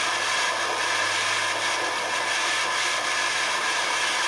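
Handheld propane blowtorch burning with a steady, even hiss as its flame heats a steel nail.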